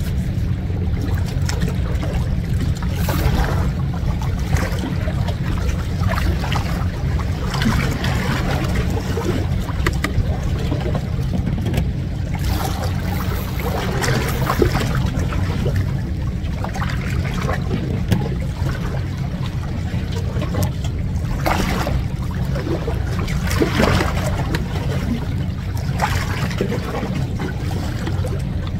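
Seawater lapping and sloshing against the rocks of a breakwater, in uneven surges, over a steady low rumble.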